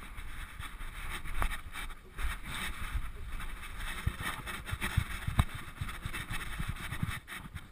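Rumbling, rustling noise from a GoPro strapped to a dog's back, rubbed and jostled by its harness and fur as the dog moves, with scattered sharp knocks, the loudest about five and a half seconds in.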